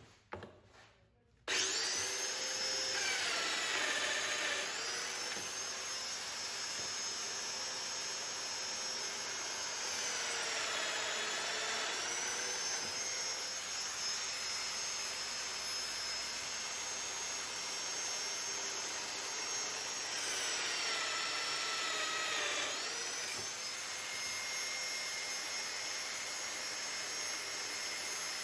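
A Festool Domino joiner and its dust extractor switch on about a second and a half in and run steadily. The motor's whine dips in pitch and recovers three times as the cutter plunges into the tulip wood panel to cut mortises.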